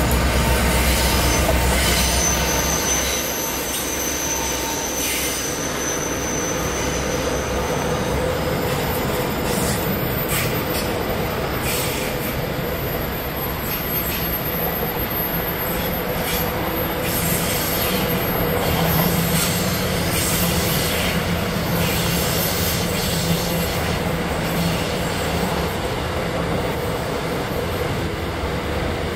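A train running past on the rails, with a steady rumble that is heaviest in the first few seconds. A thin high wheel squeal sounds from about two to eight seconds in, followed by scattered clicks and knocks of the wheels over the track.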